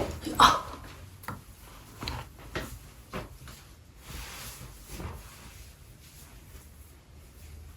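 Scattered knocks and clicks of objects being handled, the loudest about half a second in, with a short rustle or hiss around the middle.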